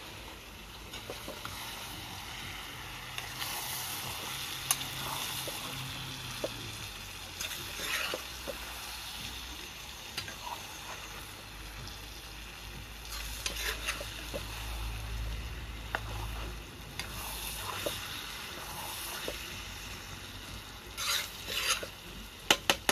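A metal spoon stirs and scrapes through ackee and saltfish frying in a pot over a fire, over a steady sizzle. Near the end comes a quick run of sharp knocks of metal on metal.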